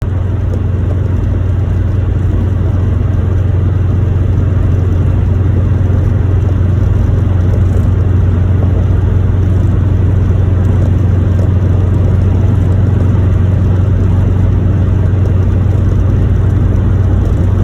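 Subaru Impreza on the move, with a loud, steady low drone from the car that does not change through the stretch.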